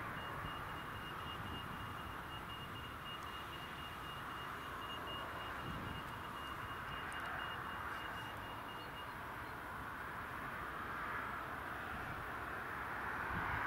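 Boeing 787-10 Dreamliner's jet engines running at taxi power, a steady whine that grows louder near the end as the jet comes closer. A thin high steady tone sounds over it for the first two-thirds.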